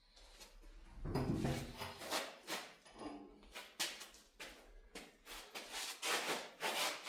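Irregular knocks, clanks and rubs of plow parts and hardware being handled and fitted, some with a brief metallic ring, starting about a second in.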